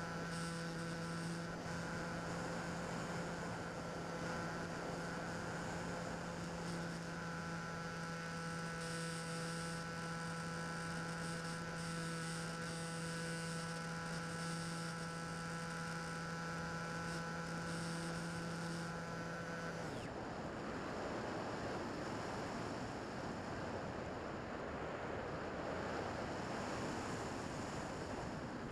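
Bixler 2 RC plane's electric motor and propeller running with a steady hum, heard from a camera on the airframe. About twenty seconds in the motor cuts off suddenly, leaving only the rush of air over the plane as it flies on unpowered.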